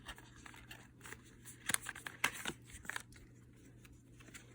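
A few light clicks and rustles of small cosmetic packaging and a card being handled, with short gaps between them.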